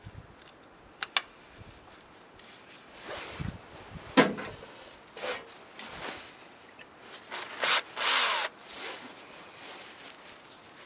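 Hand work on a bare engine front: scattered scrapes, rubs and clicks of a pick, rag and drill bit against the cast-iron block around a sheared bolt hole, with a sharp knock about four seconds in and a short rasping noise near eight seconds.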